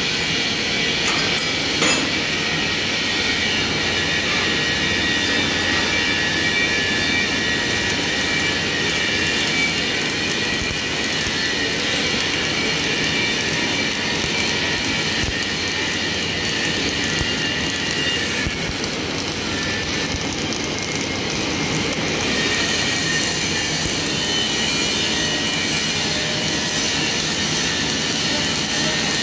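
Electric arc welding on steel plate: a steady hiss from the welding arc that grows brighter and fuller about seven or eight seconds in and then holds, over a constant machine drone.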